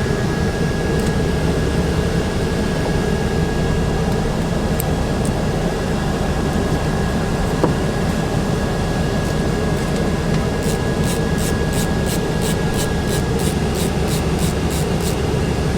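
Steady machine hum, like an air conditioner, with a faint high whine. Past the middle, a ratchet's pawl clicks in a quick even run of about three to four clicks a second for around four seconds, as the ratchet is worked back and forth.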